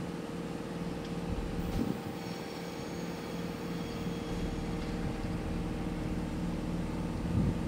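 Steady low hum and drone of a railway station at night, from standing trains and rail equipment. A faint high whine runs for about two seconds starting two seconds in, and a few low thumps come through, the loudest near the end.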